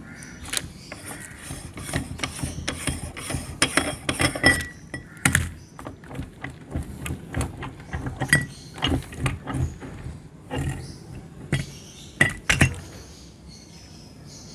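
Meat grinder crushing hard mint candies: a long run of irregular sharp cracks and crunches with clinks, densest a few seconds in and with a few louder cracks later on.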